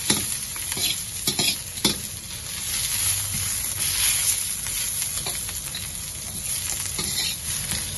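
Garlic and ginger sizzling in a little oil over low heat while being stirred together with dry-fried salted vegetables, with a few sharp knocks of the stirring utensil against the pan in the first two seconds.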